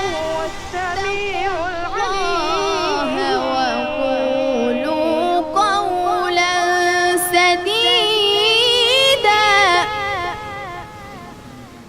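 Melismatic singing voice, ornamented runs in a Middle Eastern style, joined by further layered vocal lines in the middle and fading out near the end: a sung vocal intro theme.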